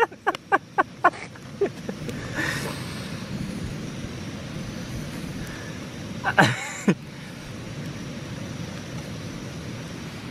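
Backpacking gas canister stove burning steadily with a rushing hiss. Short bursts of a person's voice come in the first second and a half, and one more comes about six and a half seconds in.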